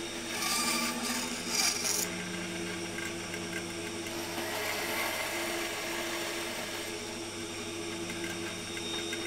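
Bandsaw running and cutting 18 mm plywood, rounding off the corners of a curved piece; the cut is loudest in the first two seconds, then the saw hums on as the piece is fed and turned against the blade.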